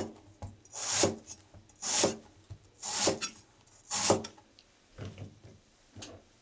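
Kitchen knife slicing through an eggplant onto a wooden cutting board: five strong cuts about a second apart, each a brief swish, then two lighter cuts near the end.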